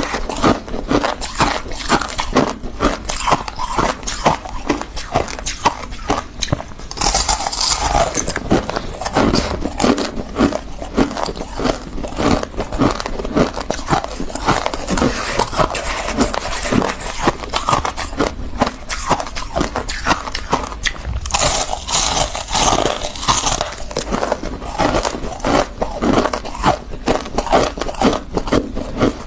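Refrozen freezer frost crunched between the teeth: a dense, unbroken run of crisp crunches and crackles. Two stretches of softer scraping, about seven seconds in and again a little past twenty seconds, come from frost being grabbed from the dish by hand.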